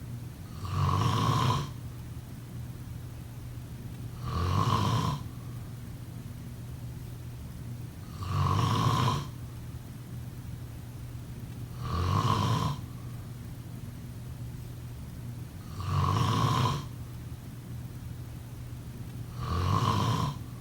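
A person snoring in a slow, even rhythm: six snores about four seconds apart, each lasting about a second, over a low steady hum.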